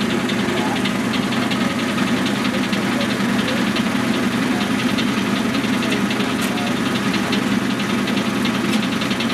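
A motor-driven machine running steadily, with a fast, even rattle.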